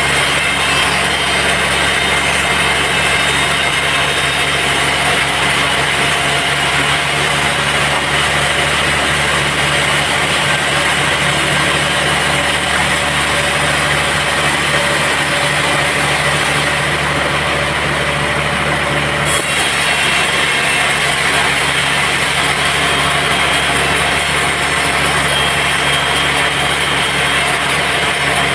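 Sawmill band saw and its engine running steadily, a loud continuous machine din with a low hum under a dense hiss. About nineteen seconds in, the high hiss shifts abruptly.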